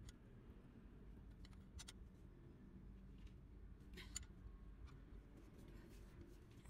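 Near silence with a few faint metallic clicks, the strongest about four seconds in, as an L-shaped hex key is worked on a bolt.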